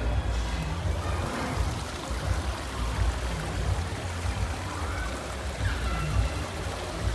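A steady rush of moving water with a gusting low rumble of wind on the microphone, and a few faint short whistles about five seconds in.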